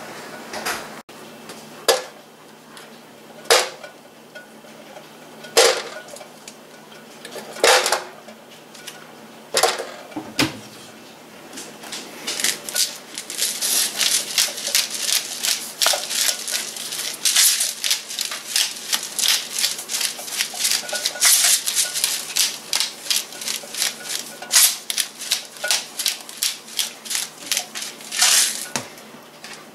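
Pierogies set one at a time into a nonstick Gotham frying pan, a knock about every two seconds. About twelve seconds in, a pepper mill starts grinding over the pan with rapid clicks that run until near the end.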